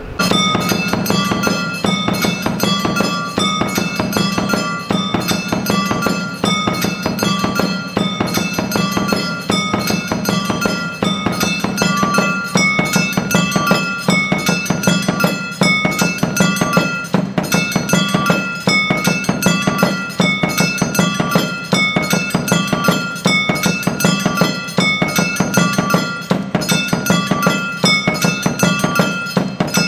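Music: a melody of bell-like chiming notes over quick, evenly spaced strikes and a steady low drone.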